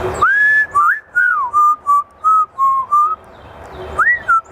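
African grey parrot whistling a tune in clear, pure notes: a rising note held briefly, a few sliding notes, then a run of short even notes, a pause, and a rising-and-falling note near the end.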